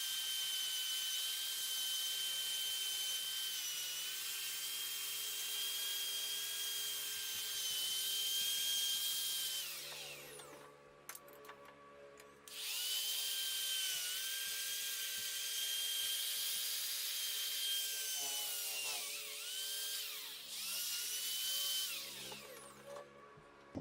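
Small high-speed electric power tool whining steadily with a hiss of abrasive contact. About ten seconds in it spins down and stops for about two seconds, then starts up again. Its pitch sags briefly twice under load before it winds down near the end.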